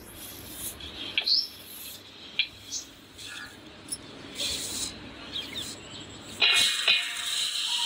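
Spiced masala frying in oil in a pressure cooker, sizzling, with a steel spoon stirring and scraping against the pot at first; the sizzle grows much louder near the end. A few short, high, rising chirps sound over it.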